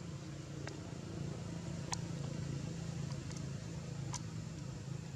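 Steady low motor hum, with a few brief sharp clicks scattered through it.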